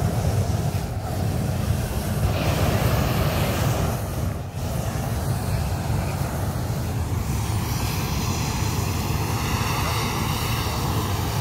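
Hot air balloon's propane burner firing in one long continuous burn, a loud rushing blast with a deep rumble, dipping briefly about four and a half seconds in.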